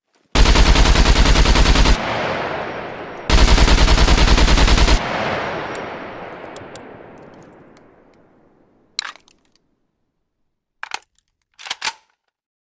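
AK-47 rifle firing two bursts of rapid fully automatic fire, each about a second and a half long, with a long echoing tail that fades away after the second burst. A few short sharp clicks follow near the end.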